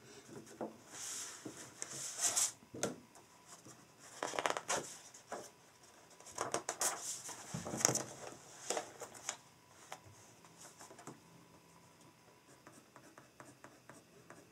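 Notebook paper pages being lifted, turned and flattened on a desk, rustling in several bursts through the first nine seconds or so. Near the end only faint small ticks and scratches of a pen starting to write on paper.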